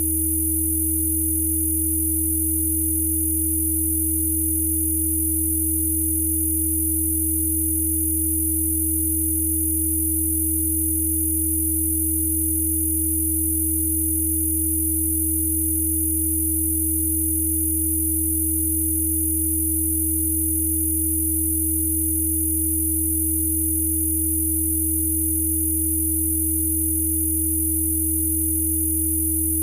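Electronically generated Rife frequency tones: several steady sine tones sounding together without change, a low hum, a mid-pitched tone and a very high whine.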